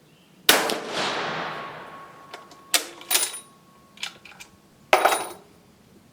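A Dutch Beaumont bolt-action rifle fires once about half a second in, the report echoing away over a second or so. Sharp metallic clacks and clicks follow as the bolt is worked, with a loud clack near the end.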